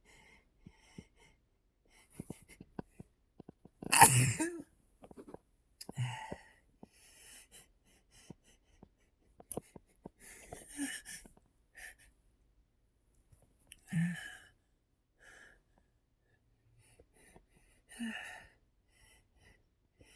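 A man sneezing, set off by his nose being tickled: one loud, sudden sneeze about four seconds in, then several quieter sneezes and breaths at intervals of a few seconds.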